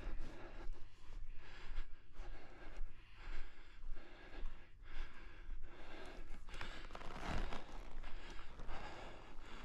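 Heavy breathing close to the microphone, about one breath a second, winded after a calf-roping run.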